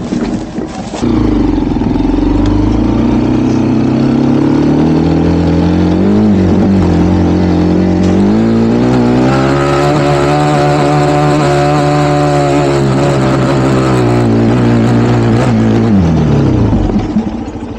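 Dirt bike engine running under load close to the microphone, revving up in two steps, holding high revs for several seconds, then the revs dropping away near the end.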